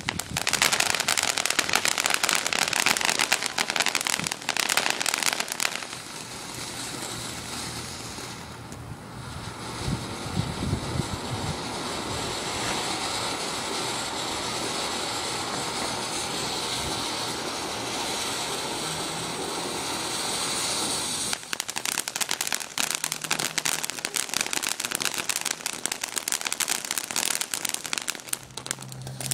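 Ground fountain firework spraying sparks with a dense crackling hiss. About six seconds in it settles to a steadier hiss, and about twenty seconds in it breaks into thick crackling again.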